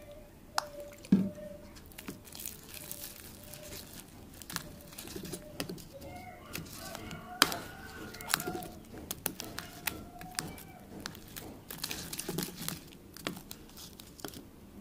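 Metal spoon stirring a thick, foamy shampoo slime mixture in a thin plastic cup: irregular clicks and taps of the spoon against the cup, with small scraping sounds.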